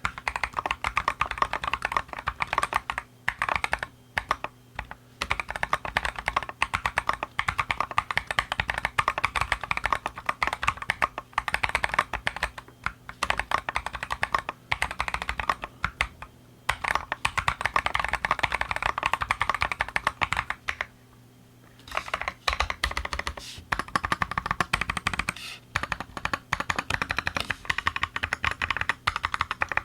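Keychron Q8 mechanical keyboard, brass-plated and foam-stuffed, with lubed Boba U4T tactile switches, being typed on fast. It makes a dense run of keystrokes with a few short pauses and a clear break of about a second a little past two-thirds of the way through.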